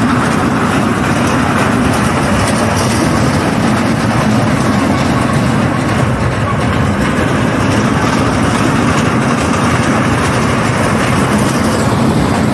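A running engine's steady, heavy low rumble, loud and unchanging, with a general crowd hubbub mixed in.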